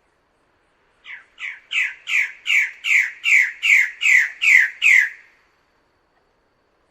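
A bird-of-paradise giving a run of about eleven loud, harsh calls, roughly two and a half a second, each note dropping in pitch, the first few building in loudness. The series starts about a second in and stops after about four seconds.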